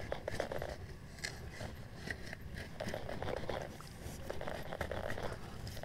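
Dry grass crackling and rustling, with scraping and scuffing in mud, as a hand digs at a mud crab's hole; short irregular clicks and crackles throughout.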